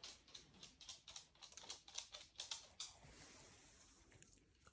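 Faint, irregular light clicks and taps, about three or four a second, from a puppy moving close by, followed by a faint hiss that fades out.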